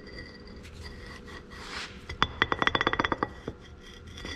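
Steel pivot shaft of a Clark front axle clinking and rattling in its worn housing bore as it is worked back and forth, a rapid run of sharp metallic clicks lasting about a second midway. The shaft is worn and obviously loose in its housing.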